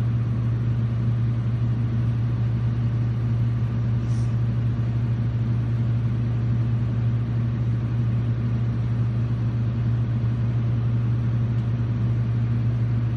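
Excavator's diesel engine running steadily, a constant low hum.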